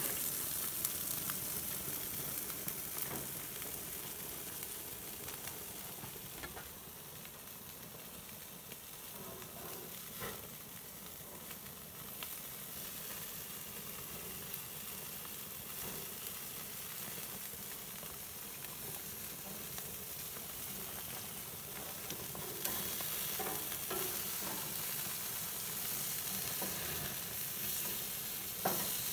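Salmon steaks sizzling on a hot grill grate: a steady hiss. A few short clicks and scrapes of metal tongs and a spatula come as the steaks are turned.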